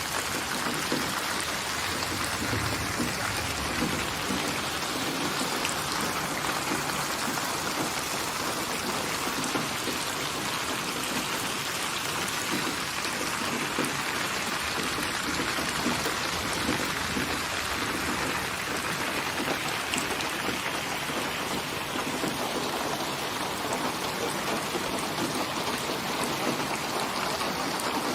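Steady rain falling, a dense, even patter of drops on surfaces.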